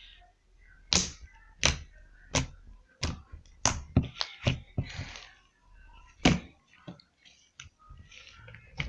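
Slime being squeezed and worked by hand, giving a string of about ten sharp pops at uneven spacing as trapped air bubbles burst; the loudest comes a little past the middle.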